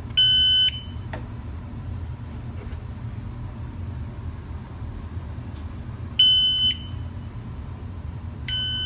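Three short, loud electronic beeps, each about half a second long, from the units of a wireless water alarm system as they are paired to join the network. A faint click comes about a second in.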